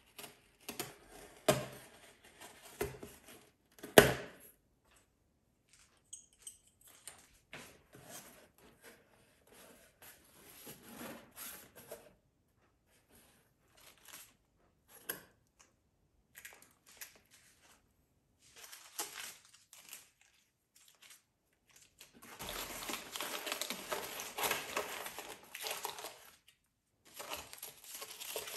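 A utility knife scoring and slitting packing tape on a cardboard box, with scrapes, clicks and a sharp knock about four seconds in. Then intermittent rustling of small sachets and cardboard flaps, and a long, louder stretch of crinkling kraft packing paper near the end.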